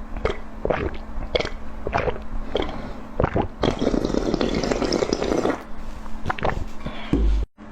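Close-miked eating sounds: sharp wet clicks and crunches about twice a second, with a dense, wet noisy stretch of about two seconds in the middle.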